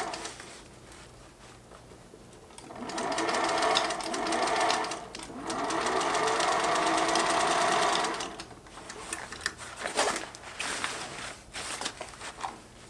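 Singer sewing machine stitching in runs: it stops at the start, runs again from about three seconds in until about eight seconds with a brief pause near the middle, then gives way to scattered clicks and rustling as the fabric is shifted.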